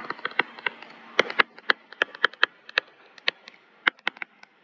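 Stylus tapping and scraping on a tablet screen during handwriting: a run of short, sharp ticks, about four a second and unevenly spaced, thinning out near the end.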